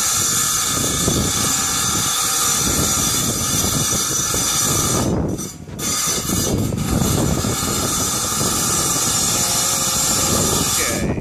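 Harbor Freight tile saw running steadily with a whining motor, cutting off briefly about halfway through before carrying on, then stopping abruptly at the end.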